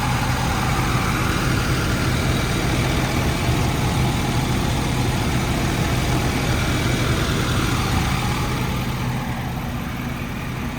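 Ford 6.7-litre Power Stroke V8 turbodiesel idling steadily with a low, even hum, getting slightly quieter near the end.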